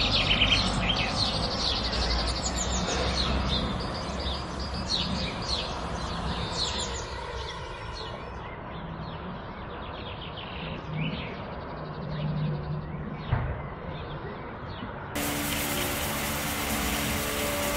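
Birds chirping over a low outdoor rumble, thinning out about halfway. About three-quarters of the way in, the sound cuts abruptly to a steady mechanical hum with a hiss.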